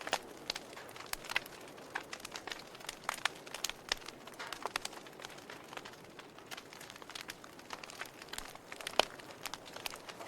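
Wood fire burning in a fireplace, crackling with irregular sharp pops over a soft hiss; one louder pop near the end.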